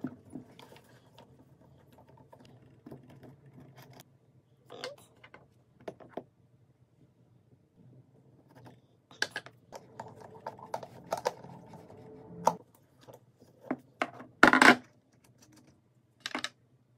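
Small metallic clicks and taps from a wrench and a skate tool working on a roller skate's truck and plate as it is taken apart. The clicks come thickest about halfway through, with one louder knock near the end.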